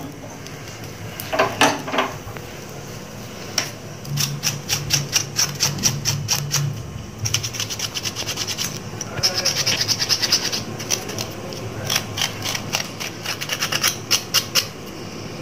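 Knife scraping the singed, charred skin and hair off a mutton trotter in quick, repeated strokes.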